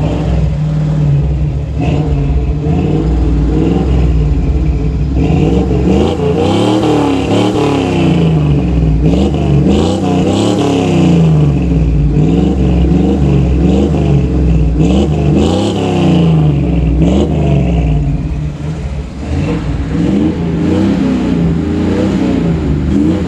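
Old Ford Bronco's engine heard through its exhaust, idling for the first few seconds and then revved over and over in quick throttle blips, with a short lull near the end before more revving.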